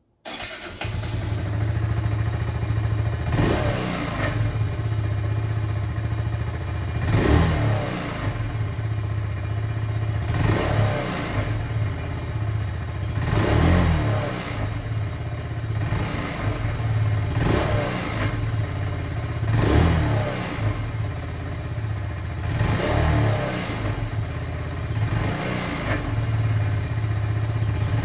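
2018 Kawasaki Z125's small single-cylinder engine idling low and being blipped about eight times, each rev rising and falling back to idle roughly every three seconds. The owner reports a grinding noise as the revs drop on deceleration.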